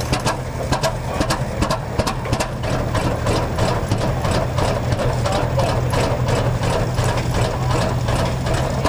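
Rumely OilPull tractor engine just started and idling slowly, its exhaust beats coming steady and evenly spaced over a low hum.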